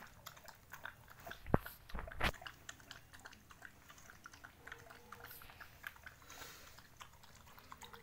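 Dog eating from a steel bowl, chewing and crunching pieces of boiled chicken feet, with many small clicks and two louder knocks about one and a half and two seconds in.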